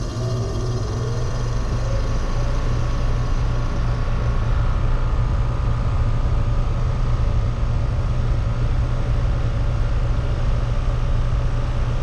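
American Standard Silver 14 heat pump outdoor unit starting up. Its Genteq condenser fan motor spins up with a tone rising in pitch over the first couple of seconds, then the fan and scroll compressor run steadily with a strong low hum.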